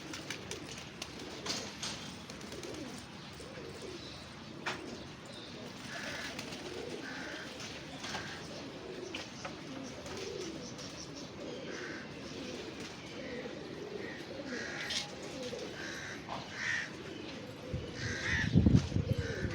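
Pigeons cooing, their low wavering calls running on continuously, with short higher calls from other birds every second or two. A louder, rough burst of sound comes near the end.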